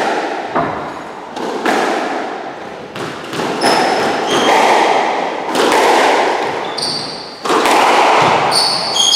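Squash rally: the rubber ball cracks off the rackets and the court walls roughly once a second, each hit echoing in the enclosed court, with short high squeaks of shoes on the wooden floor.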